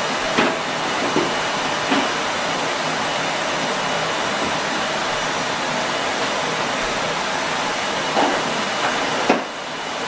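Henry vacuum cleaner running with a steady rushing hiss, with a few short plastic knocks and clunks from handling. Just after the last and loudest knock, near the end, the noise dips briefly, then picks up again.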